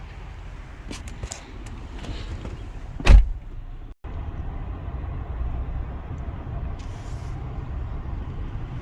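Steady low rumble of a car heard from inside, with one loud sharp knock about three seconds in and a brief break in the sound about a second later.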